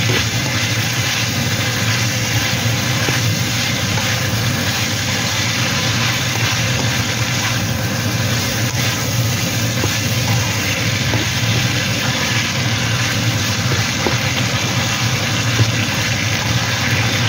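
Green beans and minced pork sizzling in a hot wok as they are stir-fried, with a spatula scraping and tossing them now and then, over a steady low machine hum.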